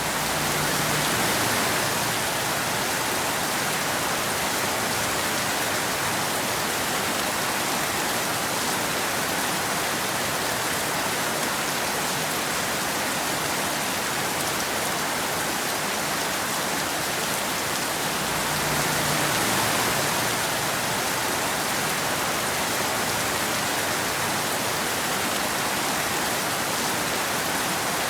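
Steady rain falling, an even hiss that swells slightly twice, about a second in and again a little before two-thirds of the way through.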